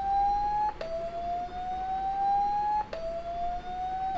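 Phone loudspeaker playing its built-in speaker-cleaning tone, meant to shake dust out of the speaker. A tone glides slowly upward for about two seconds, snaps back down with a click and rises again.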